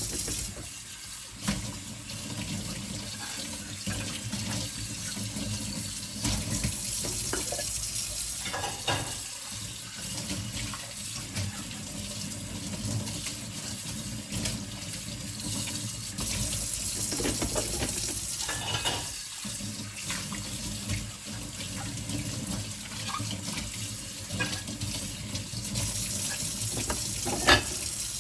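Tap water running steadily into a kitchen sink as dinner plates are rinsed by hand under it, with a few brief knocks and clinks of the plates.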